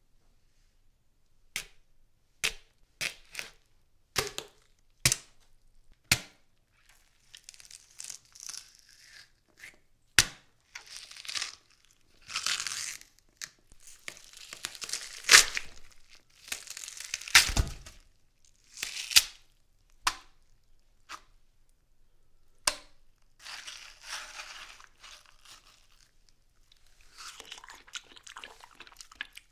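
Kitchen knife stabbing and cutting into a watermelon. First comes a run of sharp separate stabs, then longer crunching, tearing stretches as the rind and flesh are cut and pulled apart, with one heavy thud partway through.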